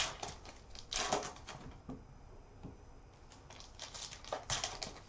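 Foil wrapper of a Panini football trading-card pack crinkling and tearing as it is pulled open by hand. It comes in short crackly bursts: one right at the start, one about a second in, and a run of them near the end.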